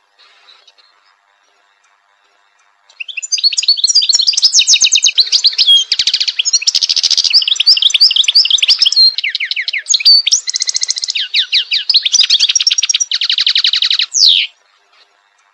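European goldfinch singing: a long, rapid twittering song of quick trills and buzzy notes. It starts about three seconds in and stops shortly before the end.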